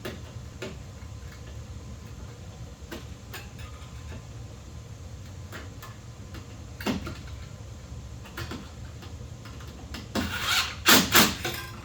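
Scattered sharp clicks and taps of pliers and copper ground wires being worked under a ground screw in an electrical box, with a quick run of louder clicks near the end. A steady low hum runs underneath.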